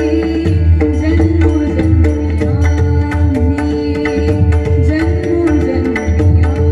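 Devotional abhang music: pakhawaj and tabla play a steady rhythm under a sustained melody line that bends up and down, over a held drone.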